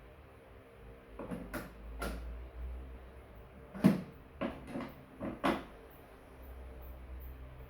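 A series of hard knocks and clatters, the loudest about four seconds in, from parts of a pedestal fan being handled and taken apart on a workbench.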